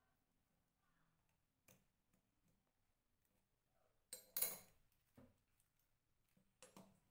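Steel hand pliers and a small steel chainmail ring clicking and clinking as they are handled over a steel block, a few sparse light clicks, with one louder metal-on-metal clatter about four seconds in.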